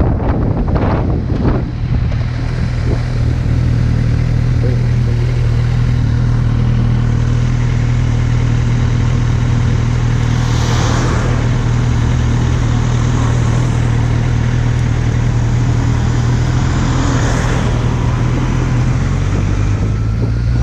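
Kawasaki Z800's inline-four engine running at a steady cruise, with wind rushing over the microphone. Wind buffeting is strongest in the first couple of seconds, and the engine note drops slightly near the end.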